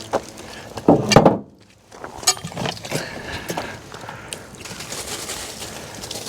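Sawn red oak boards being handled and turned over: a loud thump about a second in, then a few sharp clicks and faint scraping and rustling.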